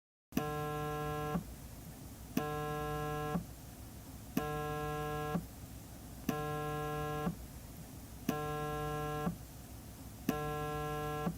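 Cell phone vibrating: six buzzes about a second long, one every two seconds, each with a click as it starts and stops.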